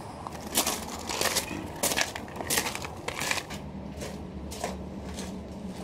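Footsteps crunching on gravel, about one step every two-thirds of a second. A low steady hum comes in about halfway through.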